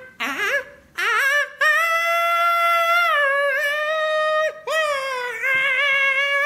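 A man's high-pitched wail, used as a silly noise: quick warbling at first, then long held notes that dip and break off a couple of times.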